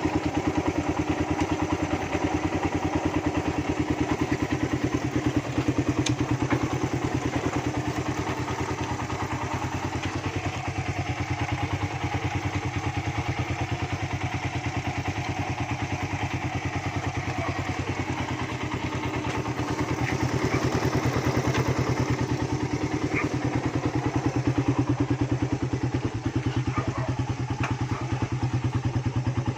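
Engine exhaust running steadily with the catalytic converter removed, giving an even, rapid train of exhaust pulses.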